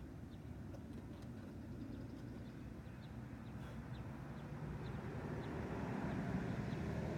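Low steady background rumble that grows louder through the second half, with a few faint light ticks.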